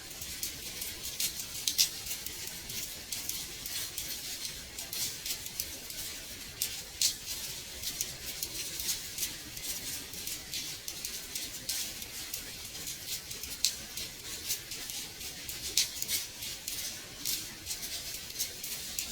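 Gentle rain on a window: a steady high hiss with many small, irregular drop taps.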